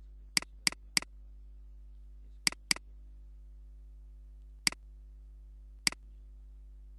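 Computer mouse clicks: seven sharp clicks, three in quick succession near the start, a pair about two and a half seconds in, then two single clicks later, over a steady low hum.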